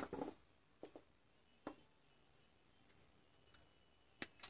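A few faint clicks and taps as lithium-ion cells and a pair of pliers are handled on a workbench, then two sharper clicks close together near the end, as the pliers work the cells' connecting wire.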